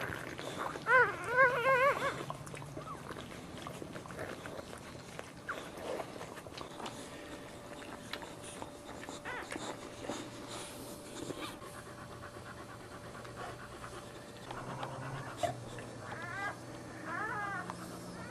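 Newborn boxer puppies squealing in short, high, wavering cries, loudest about a second in and again near the end. Between the cries the mother boxer pants and licks her pups.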